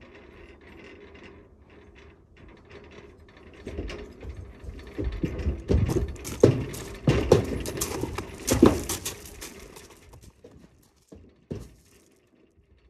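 A horse's hooves clomping and scrambling on the floor of a metal stock trailer as it is loaded, with the trailer's panels rattling. A run of loud, uneven knocks from about four to nine seconds in, then a few single knocks.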